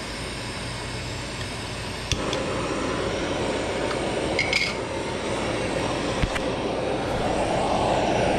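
A fan running steadily, joined about two seconds in, after a sharp click, by the rushing hiss of a butane torch searing steak in a cast iron pan; the hiss grows louder near the end.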